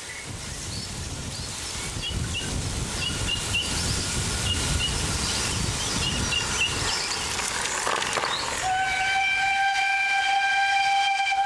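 Steam locomotive drawing near with a growing rumble, then sounding its steam whistle in one long steady blast over the last few seconds.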